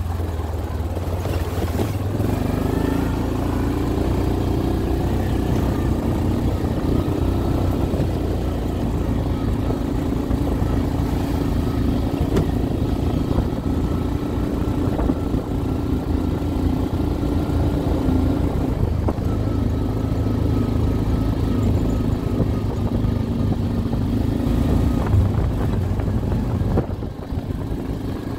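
ATV engine running at a steady cruising speed on a dirt trail, a continuous drone over a deep low rumble, easing off slightly near the end.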